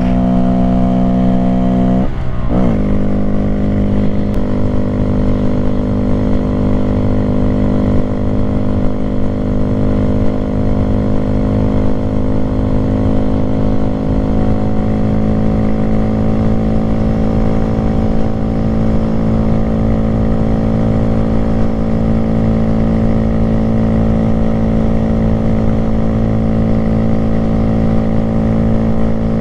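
Honda Grom's 125cc single-cylinder engine running hard at high revs under the rider. About two seconds in the note dips briefly and climbs back, a gear change. It then holds a steady high note that creeps slowly higher.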